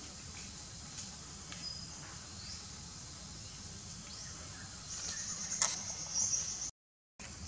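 Steady high-pitched buzzing of insects, with a few short high chirps. About five seconds in it swells into louder, rapid chirring for over a second, with a sharp click in the middle, before the sound cuts out briefly.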